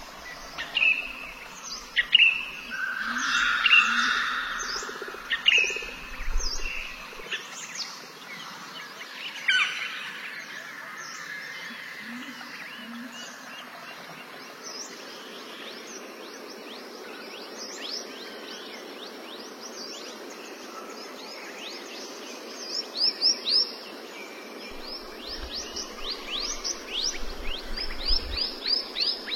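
Birds chirping: short, sharply falling calls, scattered at first and coming in quick runs near the end, over a steady outdoor noise.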